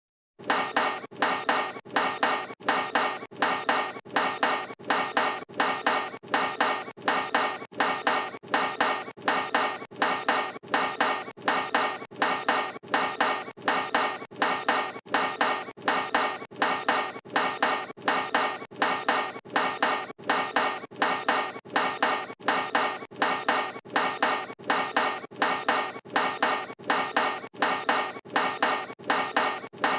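Basketball clanking off a metal hoop rim on a missed shot, repeated evenly about three times every two seconds, each hit ringing briefly.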